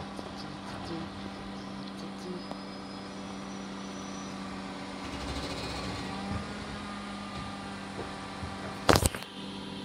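Bin lorry's diesel engine running with a steady hum as it creeps along the street. One loud clunk about nine seconds in.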